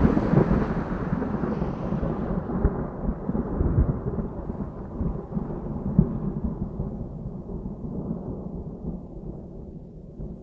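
Rolling thunder rumbling low and fading away, its highs dying first, until it cuts off abruptly near the end.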